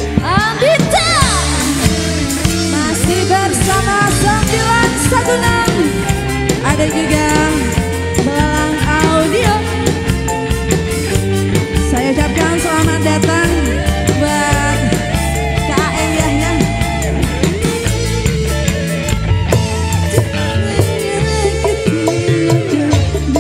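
Live dangdut koplo band music: drums keep a steady beat under a wavering melody line.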